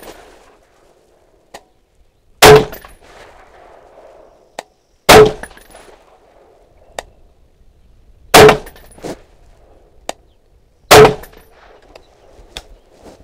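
Four rifle shots from a Daniel Defense DD5V2 semi-automatic .308, about three seconds apart, each with a short echoing tail. Fainter sharp clicks fall between the shots.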